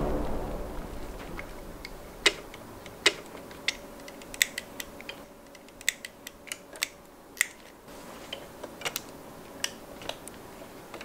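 Irregular sharp clicks and taps of hard plastic and die-cast metal parts of a METAL BUILD Shin Getter-1 action figure being handled and fitted together. The tail of background music fades out in the first second.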